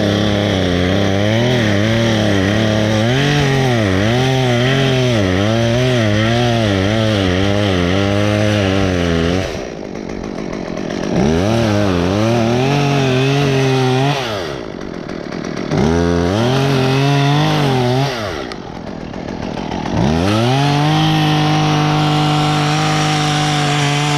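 Gas chainsaw cutting wood, its engine pitch wavering up and down under load. It drops back to idle three times between bursts of throttle, then holds one long, steady high-revving run near the end.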